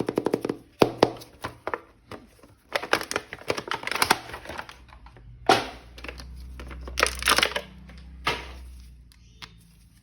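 Toy packaging being handled and torn open: crinkling, crackling and tearing in quick irregular bursts, with a low hum in the middle stretch.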